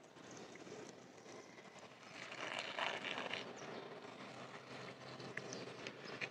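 Small hand-pump garden sprayer misting liquid onto collard leaves: a soft hiss of spray that swells for about a second in the middle, over faint outdoor background and a few light clicks of handling.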